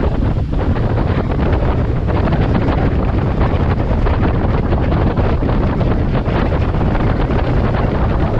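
Water taxi running at speed, heard from inside its cabin: a steady drone of the boat's engine mixed with rushing water and wind.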